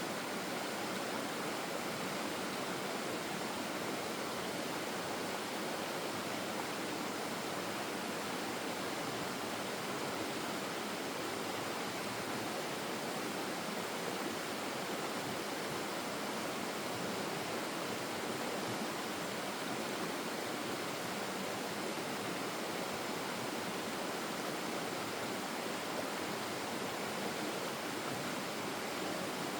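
Flowing stream water rushing steadily and evenly, with no breaks or changes.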